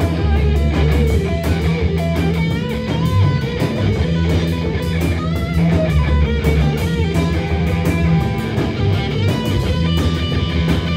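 Live punk rock band playing an instrumental passage: electric guitar over a steady drumbeat with cymbal hits, and no singing.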